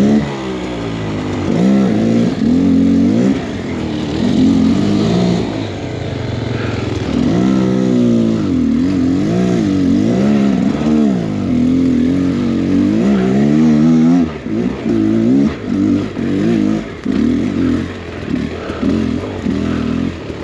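Beta X Trainer 300 two-stroke dirt bike engine revving up and down repeatedly under load as the throttle is worked on the trail. About two-thirds of the way in it turns to short, choppy throttle blips.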